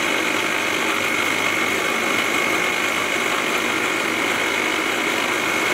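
Electric mixer grinder (mixie) running steadily with a stainless steel jar, its motor's whirr carrying a constant high whine.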